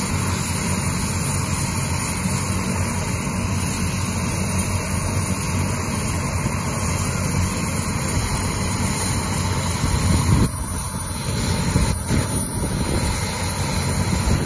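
Helicopter running on the ground, its turbine engine and rotor making a loud, steady noise with a thin high whine. The sound dips and shifts briefly about ten and a half seconds in.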